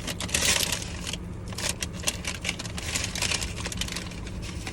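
A food wrapper around a fried pie being handled: irregular rustling, crinkling and small clicks over a steady low hum.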